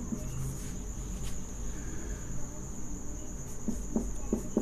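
Marker writing on a whiteboard: faint strokes and a few soft taps, clustered about a second before the end. Under it runs a steady high-pitched whine, like a trilling cricket, over a low hum.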